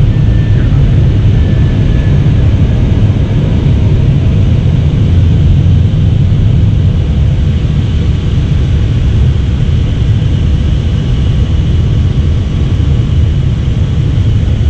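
Steady loud rumble inside an Airbus A320 flight deck, with its engines running.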